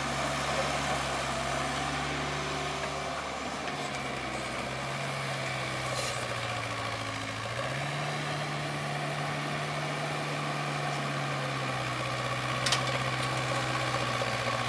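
Kobelco mini excavator's diesel engine running steadily as it loads sand. Its note steps up about halfway through and drops back a few seconds later.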